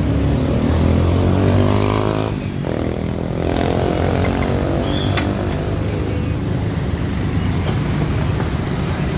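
Motorcycle engines passing close by on the road, their pitch sliding as they go past, in two passes a second or so apart.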